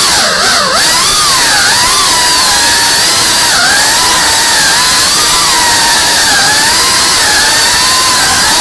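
FPV quadcopter's electric motors and propellers whining loudly, the pitch rising and falling continually as the throttle changes, with a quick dip in pitch about half a second in.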